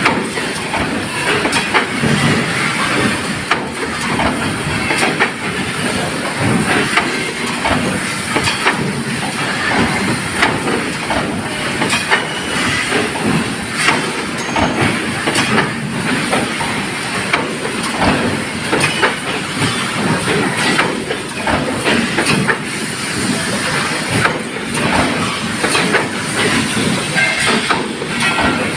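500-ton stamping press at work: a continuous clatter of irregular metal knocks and clanks over a steady hissing noise.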